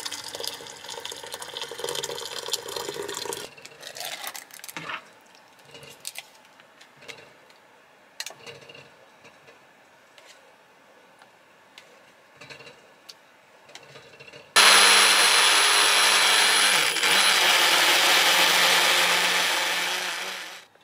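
Small countertop blender starting suddenly and running steadily for about six seconds, with a brief dip partway, blending banana and yogurt; it is the loudest sound here. Before it, hot water is poured from an electric kettle into a pan, followed by a spoon scraping and clinking in a yogurt tub.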